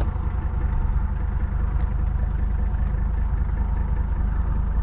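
Mercedes-Benz W123 300TD's OM617 five-cylinder diesel engine idling steadily, with an even, fast-pulsing run, heard from inside the cabin.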